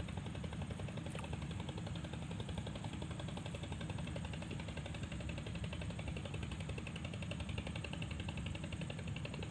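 A fast-flowing muddy river rushing steadily past a fallen log, a constant low rumble with a hiss above it.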